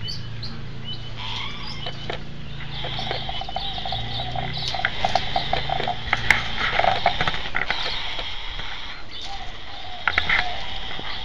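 Cockatoo making a long, drawn-out raspy sound, rising to its loudest, choppiest stretch about halfway through and flaring again near the end.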